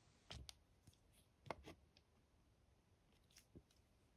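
Near silence, broken by a handful of faint, sharp clicks and taps in three pairs as a steel caliper is handled against a small wooden door frame.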